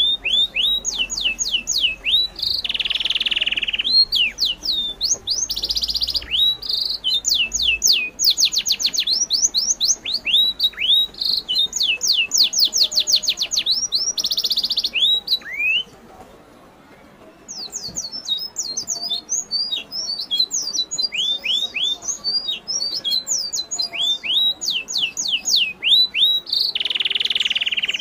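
Birds calling in the forest: rapid series of high chirps that sweep downward, mixed with a few short harsh, buzzy notes, with a brief lull a little past halfway.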